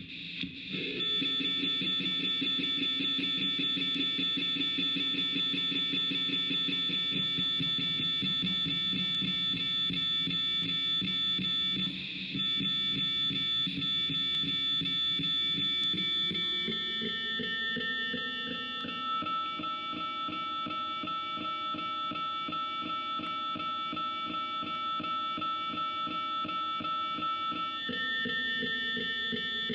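Circuit-bent office telephone droning: a dense electronic buzz of several steady high tones over a rough, fast-pulsing low hum, switching on about a second in. It drops out for a moment near the middle, and about halfway through the low part slides up in pitch and the high tones shift to new pitches.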